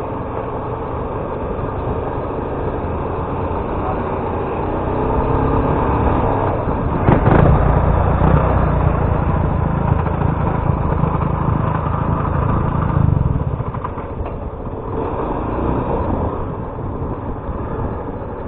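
Motorcycle engine running and making a strange racket, the noise that made its rider shut it off. It grows louder about seven seconds in and eases back about thirteen seconds in.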